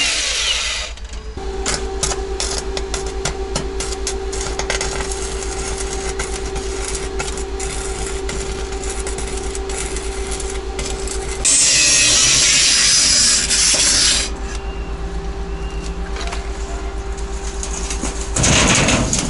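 Electric arc welding on 2.5 mm steel sheet with a small portable welder: the arc crackles and sputters unevenly over a steady hum. About halfway through the sound turns into a louder, harsher hiss for a few seconds, and there is another short loud burst near the end.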